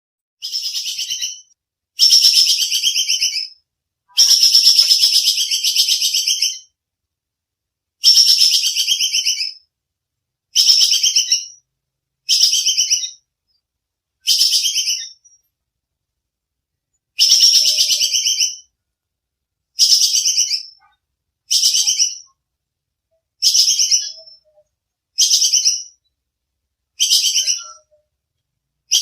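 Squirrel (bajing kekes) giving its sharp chattering call: repeated bursts of rapid, high-pitched notes, each one to two seconds long, separated by short pauses.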